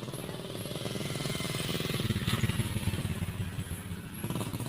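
A small engine running with a fast, even putter, growing louder toward the middle and then easing off.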